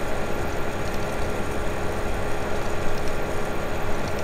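Steady background hum with hiss, the recording's own noise floor, with no other distinct sound.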